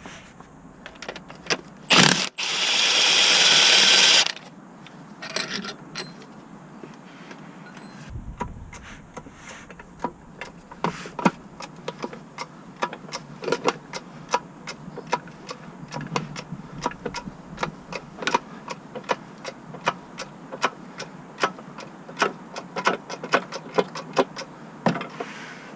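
Hand-tool work on a car. A sharp knock comes about two seconds in, then a loud hiss lasting about two seconds. After that there is a long run of irregular metallic clicks and taps, a few a second.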